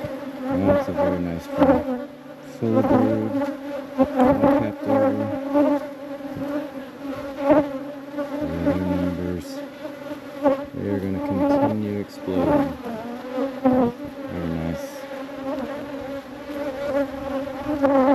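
Honeybees buzzing around an open hive: a steady hum from the colony, with individual bees passing close, their pitch bending up and down.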